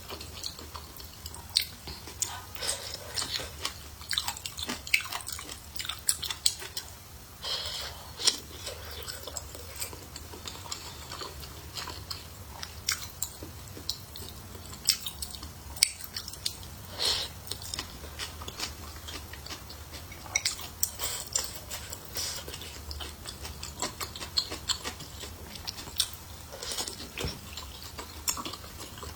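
A person chewing food close to the microphone, with frequent short, sharp wet clicks and smacks of the mouth.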